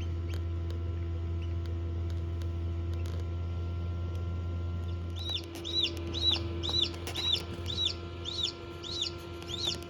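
Steady hum of a Hova-Bator egg incubator. From about halfway through, a newly hatched chick peeps repeatedly: about nine short high chirps, roughly two a second, each rising and falling in pitch.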